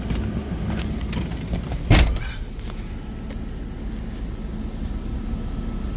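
6.7 Cummins turbo-diesel idling steadily, heard from inside the truck's cab, with a sharp thump about two seconds in.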